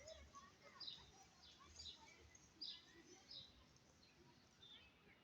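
Small birds chirping: short, high, downward-sliding chirps repeating roughly every half second, thinning out after about three and a half seconds.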